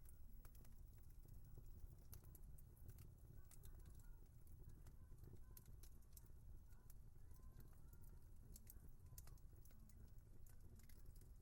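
Wood fire crackling faintly: irregular small pops and snaps over a low, steady rumble.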